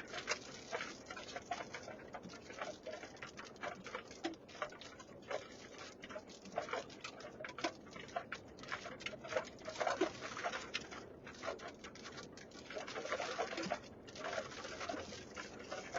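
Light rain pattering on the vehicle, with irregular drops ticking on the roof and glass.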